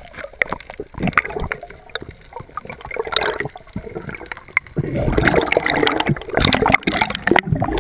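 Underwater camera audio of air bubbles gurgling and clicking, growing louder about five seconds in as a cloud of rising bubbles passes the lens.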